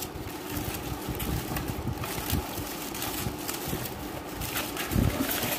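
Honeycomb kraft-paper packing wrap rustling and crinkling as it is handled and pulled out of a cardboard box, an irregular run of small crackles.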